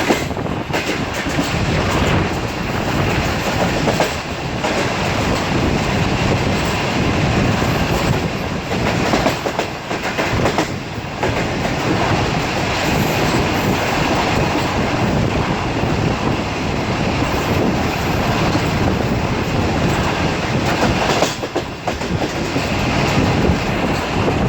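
Sir Syed Express passenger train running fast, a loud steady rumble with the wheels clicking over rail joints.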